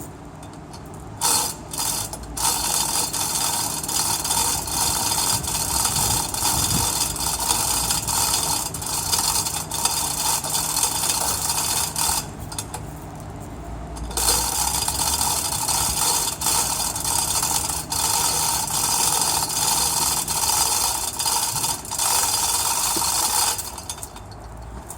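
Chain hoist being worked by hand, its ratchet pawl clicking rapidly and steadily as the chain is hauled in under heavy tension. The clicking stops for about two seconds partway through, then resumes until near the end.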